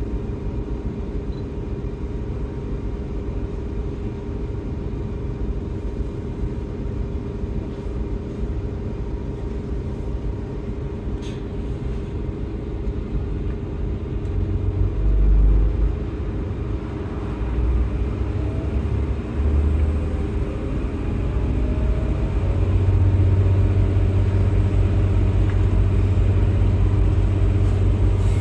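DB Class 628 diesel multiple unit under way, heard inside the passenger saloon: a steady rumble of wheels on rail and the underfloor diesel engine, with a constant hum over it. About halfway through, a low drone swells, and it stays louder for the last few seconds.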